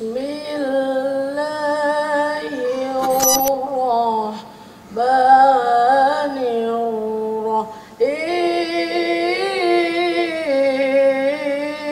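A boy's voice reciting the Quran in the melodic, sung tilawah style, pitched high. He sings three long drawn-out phrases with wavering ornaments, breaking briefly after about four seconds and again near eight seconds.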